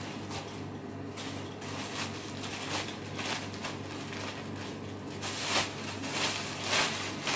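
Black plastic bin bag rustling and crinkling as it is handled and opened out, louder over the last couple of seconds, over a steady low hum.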